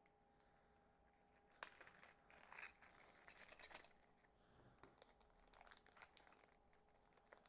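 Faint crinkling of a plastic hardware bag being handled, with small clicks and taps of parts, busiest about two to four seconds in.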